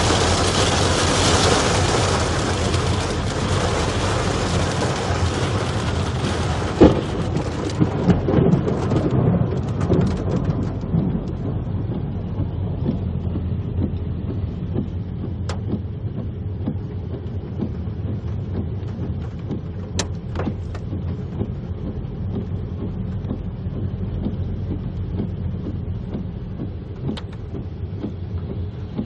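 Hail and rain hitting a car's roof and windscreen, heard from inside the car: dense and loud at first, dying away over about the first ten seconds. After that comes the car's low road and engine rumble, with a few isolated ticks.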